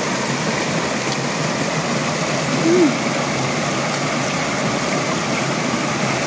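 Stream water rushing steadily over rocks, with one short hummed voice sound that rises and falls about three seconds in.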